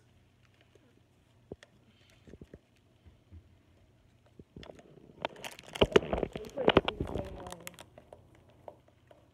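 Faint small clicks, then about five seconds in a couple of seconds of loud knocking and rustling as the recording phone is jostled and shifted on a towel.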